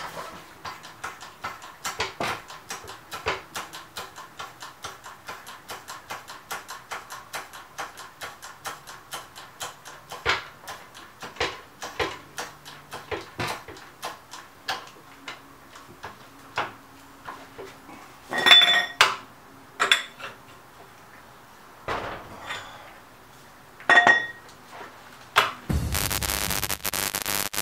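A 3-ton hydraulic floor jack being pumped by its handle to lift the vehicle: a steady run of sharp clicks, about two or three a second. A few ringing metal clanks come later on, and a loud burst of static-like glitch noise starts near the end.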